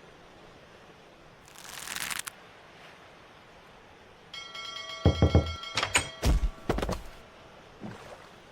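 Cartoon sound effects: a short swish, then a creaking, rattling clatter with several heavy thuds, the loudest part, about five to seven seconds in.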